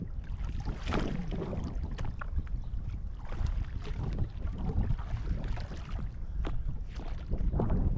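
Small fishing boat out on the sea: water splashing and sloshing against the hull, with wind buffeting the microphone in irregular surges.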